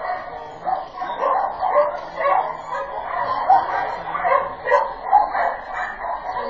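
Dog barking over and over in short barks, about two a second.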